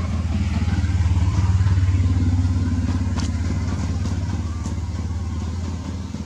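A motor engine running with a steady low hum. It grows louder about one to two seconds in, then slowly eases off.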